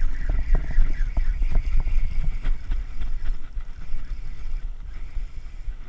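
Wind buffeting an action-camera microphone on a kayak as a steady low rumble, with scattered light clicks and knocks during the first half.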